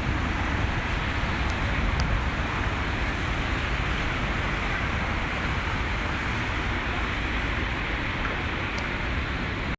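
Steady city street traffic noise, the hiss of cars on a wet road, with wind rumbling on the microphone.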